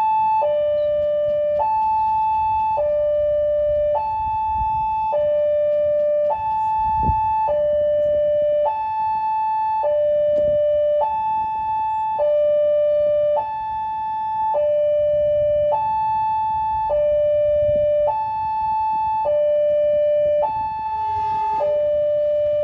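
Railway level crossing warning alarm sounding continuously, an electronic tone switching evenly between a high and a lower pitch about every second, over a low rumble.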